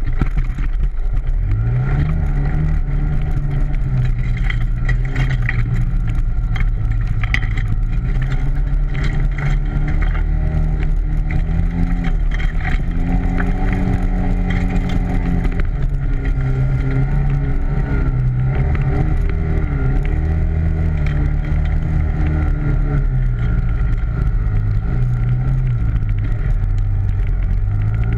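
ATV engine running while under way, its pitch rising and falling again and again as the throttle is opened and eased off.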